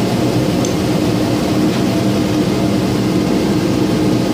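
A steady, loud mechanical drone with a low hum, coming up just before and holding level.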